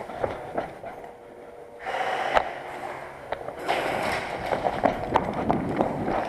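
Irregular sharp snaps and clicks of an indoor airsoft game, over rustling movement noise. There is one strong snap about two and a half seconds in and a run of quicker snaps near the end.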